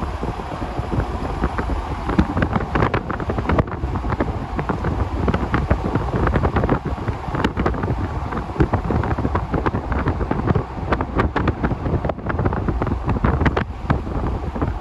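Wind buffeting the microphone: a loud, uneven low rumble broken by frequent crackles.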